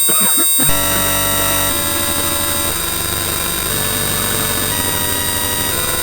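Loud, harsh distorted electronic noise: a dense stack of steady buzzing tones that jumps to a new set of pitches in steps about every second, over a fast low pulsing.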